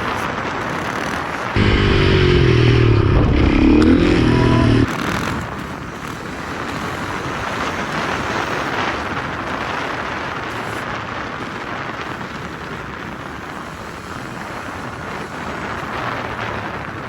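Supermoto motorcycle engine running loudly for about three seconds, starting and stopping sharply, followed by a steady rush of wind and road noise.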